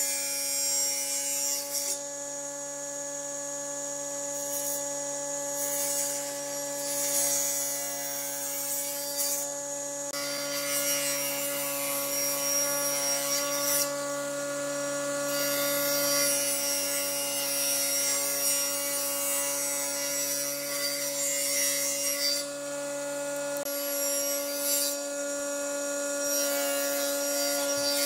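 Table saw running with a steady motor hum while its blade cuts pine in several passes, each cut adding a few seconds of high sawing rasp.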